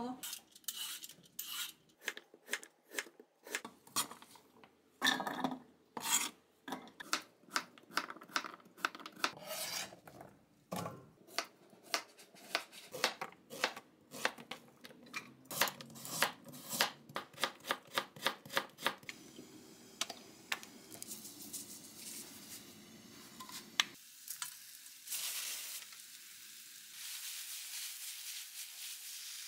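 Cooking sounds: metal utensils clinking and scraping on cookware in many quick, irregular strokes. About two-thirds of the way through, food starts sizzling in a hot pan with a steady hiss.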